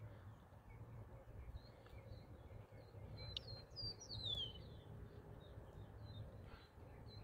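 Faint birdsong: soft high chirps throughout, and a brighter call of quick falling whistled notes about three and a half seconds in, over a low steady rumble.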